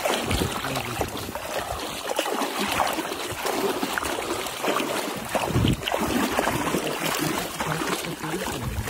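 Water splashing and sloshing as carp thrash inside a mesh keepnet held in the shallows, with a couple of heavier splashes in the second half.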